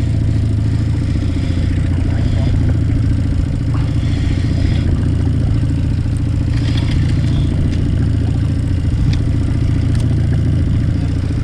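A boat's outboard motor running steadily at low speed while trolling: a constant low engine hum with no change in pitch.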